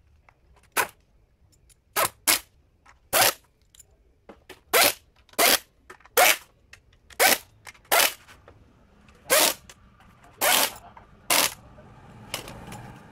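Impact wrench run in about a dozen short bursts, driving home the bolts of a Honda Vario eSP scooter's CVT cover.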